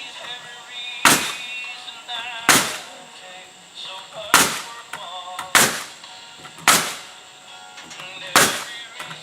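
Six sharp, loud strikes on the wood framing, each ringing briefly, spaced a second or two apart, as nails are driven. A radio plays country music underneath.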